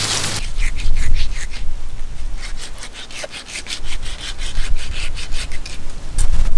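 A piece of stingray skin being scraped back and forth against the rough bark of a palm trunk, in quick rasping strokes, about four or five a second.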